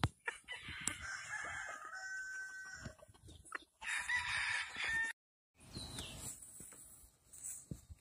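Gamefowl roosters crowing: two long crows, each about two seconds, the second starting about four seconds in.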